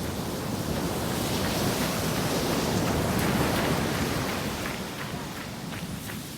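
Surf washing in: a steady rushing noise that swells for a few seconds and eases off near the end.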